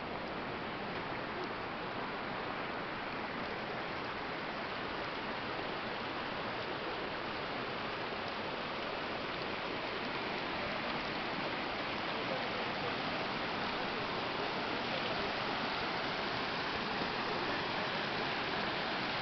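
Steady rushing of a mountain stream, growing slightly louder toward the end.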